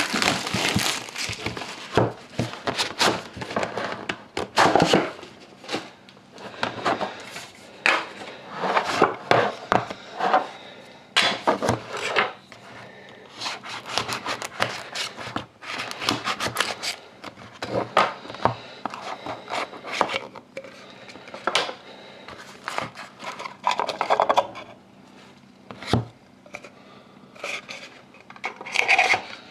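A box of Panini Dominion hockey cards being opened by hand: irregular clicks, rubbing and crinkling as the packaging is worked open and the cards are handled.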